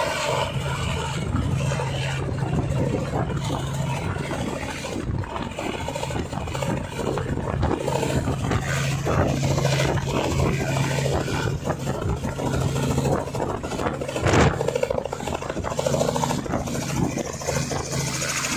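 Small two-bladed helicopter running on and just above a helipad: a steady rotor and engine drone with one brief louder burst about three-quarters of the way through.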